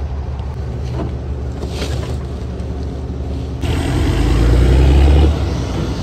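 Heavy diesel harvest machinery running close by, a John Deere 9870 STS combine with its corn head and a grain dump truck, as a steady low rumble. About three and a half seconds in, the rumble turns louder and deeper.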